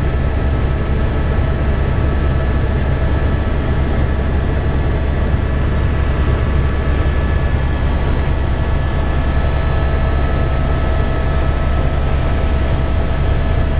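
Helicopter running steadily: a heavy, even low rumble of the rotors and engine with a steady high whine over it.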